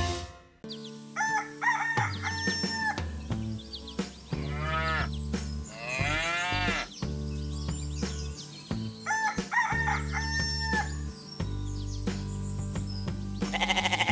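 Rooster crowing twice, with a rising-and-falling animal call between, over background music with steady low notes.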